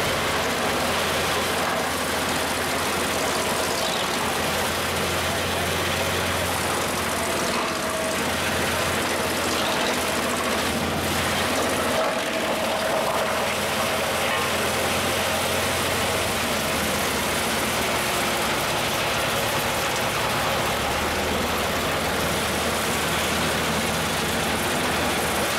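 Homemade drum wood chipper running steadily, its engine and spiked feed drum turning with a constant low drone.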